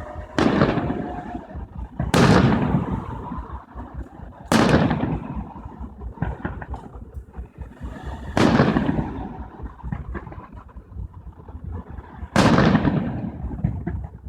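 Aerial fireworks shells bursting: five loud booms a couple of seconds apart, each trailing off in a rumbling echo.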